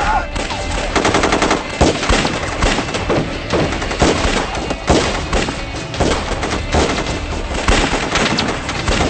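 Gunfight sound effects: a rapid burst of automatic fire about a second in, then repeated single shots and short bursts.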